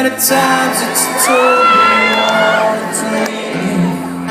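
Live band playing a slow song intro of sustained chords through the PA, with a voice sliding up and holding a long high note partway through, and audience cheering.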